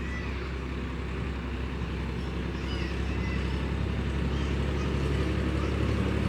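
An engine running steadily with a low hum, growing slightly louder toward the end.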